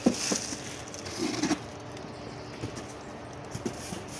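Clear plastic bag rustling and crinkling around a security-camera enclosure as it is handled and laid down on concrete, with a couple of sharp knocks at the start and scattered light clicks after.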